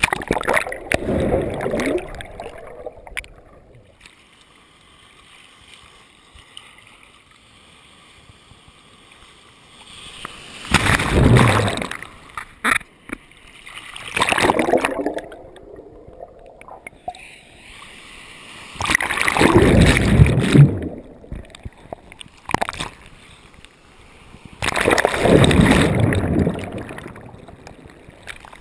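Ocean surf breaking over and around a waterproof action camera at water level: about five loud rushes of churning, splashing water a few seconds apart, with quieter sloshing between them.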